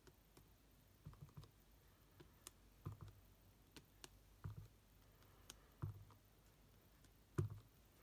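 Clear acrylic stamp block being inked on an ink pad and pressed onto cardstock: about five dull taps and light clicks, the loudest near the end.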